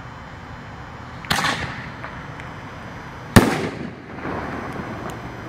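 A 1.5-inch canister firework shell fired from a mortar tube. The lift charge goes off with a sharp report about a second in, and about two seconds later the shell bursts overhead with a louder bang.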